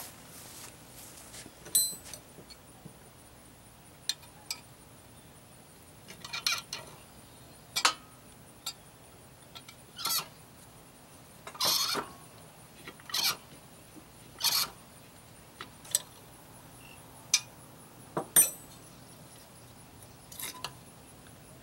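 Metal wrench clinking and scraping on the bolts of an Evinrude 9.9 outboard's lower-unit gear housing: about a dozen short metallic clinks, irregularly spaced a second or two apart.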